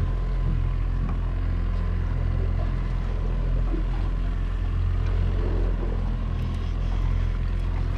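Boat's outboard motor running steadily at slow trolling speed, a constant low hum.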